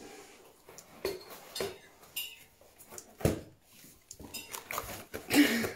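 A dog tearing into a cardboard box: irregular knocks, scrapes and rustles of cardboard and paper, loudest about five seconds in.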